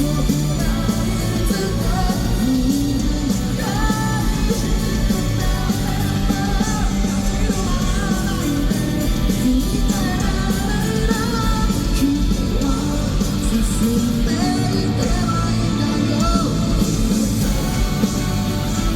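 Rock band playing live, with electric guitars, bass and drums under a lead singer's vocal line.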